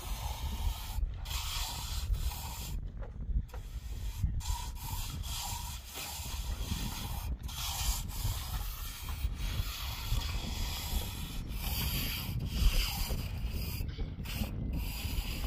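Hand trowel scraping and smoothing mortar over wire mesh on a roof, in repeated rasping strokes with short pauses between them.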